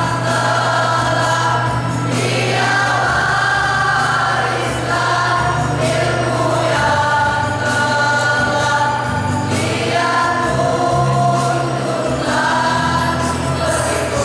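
A male choir singing together in long held notes, moving to a new chord every couple of seconds.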